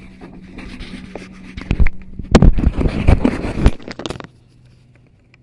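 Kraton RC monster truck running with a steady hum, then from about two seconds in a burst of loud clattering knocks and scraping as it crashes into a pole and tumbles, cutting off suddenly after about four seconds.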